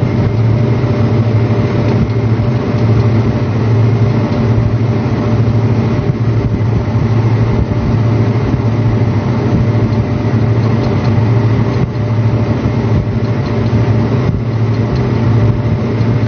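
John Deere tractor's diesel engine running steadily under load, a continuous low drone that does not change, while it pulls a peanut digger.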